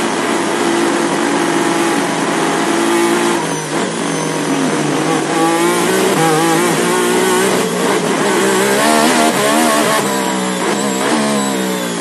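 Formula 1 racing car engine heard from the driver's seat, accelerating. It holds a steady high note for about three and a half seconds, then its pitch rises and falls over and over until the end.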